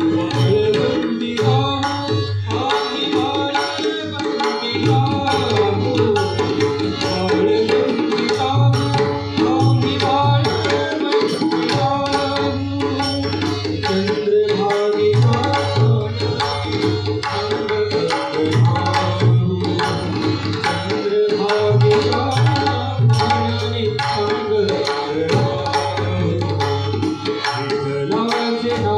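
Tabla and mridang drumming a brisk, steady rhythm with deep bass strokes, under a sustained melodic accompaniment, in an abhang performance.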